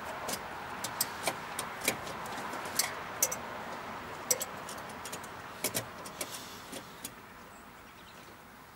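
Irregular sharp clicks and light taps of plastic parts being handled as an LED headlight bulb is lined up with its three-prong wiring connector, over a steady background rush that fades near the end.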